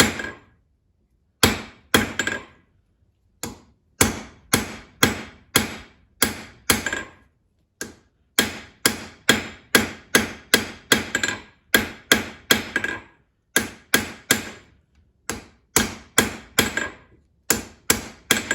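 Hand hammer striking hot 5160 spring steel on an anvil, about two blows a second in runs of several with short pauses, each blow ringing briefly. The hammering is squaring and then octagoning the struck end of a slot punch.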